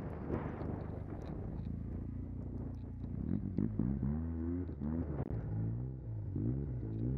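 Arctic Cat M1100 Turbo snowmobile's turbocharged four-stroke engine, fitted with a custom aftermarket exhaust, under way with wind rush on the helmet microphone. From about three seconds in, it revs up and eases off several times in quick succession.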